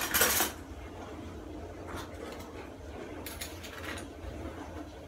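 Metal cutlery rattling in an open kitchen drawer for about half a second at the start. A few light clicks and clinks follow a little after three seconds in.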